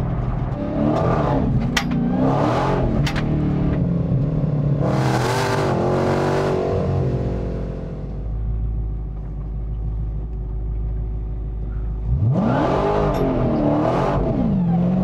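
Dodge Demon 170's supercharged 6.2-litre Hemi V8 accelerating hard in repeated surges, the revs climbing and dropping through gear changes. It eases off to a steadier, lower note in the middle, then pulls hard again from low revs about twelve seconds in.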